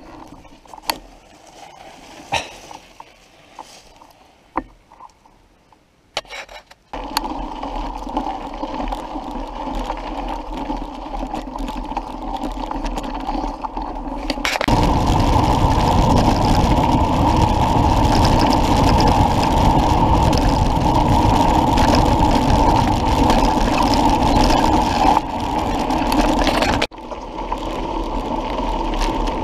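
Mountain bike riding heard from an action camera on the bike. Scattered clicks and rattles on a woodland trail give way to a steady rush of tyres rolling and wind on the microphone. The rush grows louder and heavier about halfway through, and the sound changes abruptly at several cuts.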